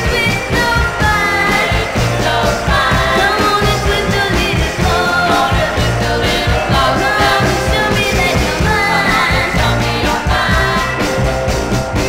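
1964 girl-group rock and roll recording: female voices singing over a band with drums and bass.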